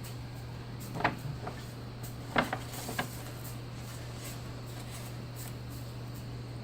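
A few short knocks and bumps of objects being handled, about one second in and twice more around two and a half to three seconds, over a steady low electrical hum.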